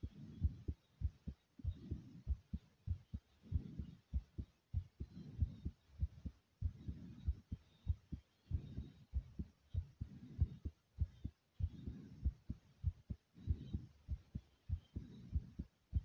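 A person's heartbeat after exertion (over 50 jumping jacks), beating hard and fast as an even run of low thumps. Heavy breaths swell in about every one and a half to two seconds.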